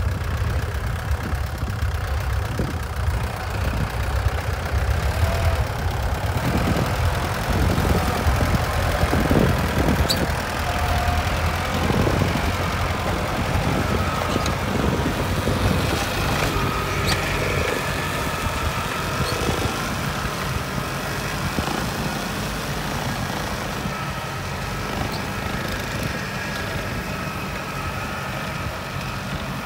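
Kubota compact tractor's diesel engine running steadily while its hydraulic side-arm boom flail mower cuts grass on a bank, a little louder in the first half.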